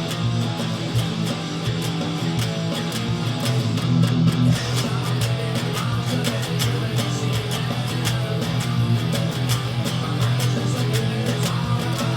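Electric guitar strumming bar chords in a steady rhythm, playing a hard-rock song's main riff in standard tuning.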